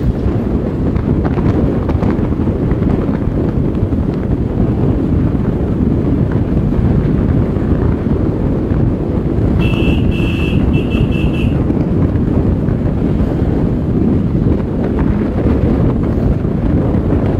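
Wind buffeting the microphone of a moving vehicle, a steady low rumble. About ten seconds in, a quick run of short high beeps.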